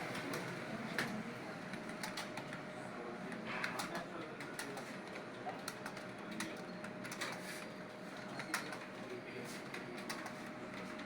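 Computer keyboard being typed on: irregular key clicks, several a second, over faint room noise and a low steady hum.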